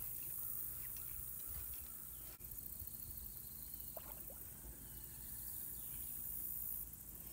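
Faint pond-side ambience: a steady high hiss and a low rumble, with a small water splash as a largemouth bass strikes at the surface near the bank.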